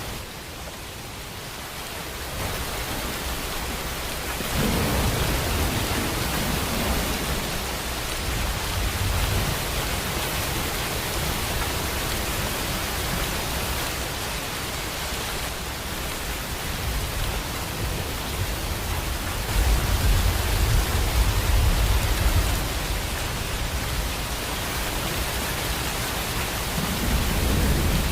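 Steady heavy rain, a dense even hiss, with low rolling thunder rumbling underneath in waves, strongest about twenty seconds in.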